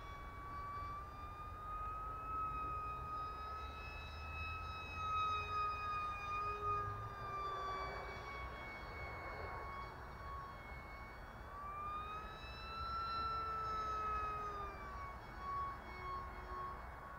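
Electric ducted-fan RC jet (HobbyKing PrimeJet Pro on a 4S battery) flying overhead: a steady high-pitched fan whine with overtones. Its pitch rises and falls slowly twice as the jet passes and turns.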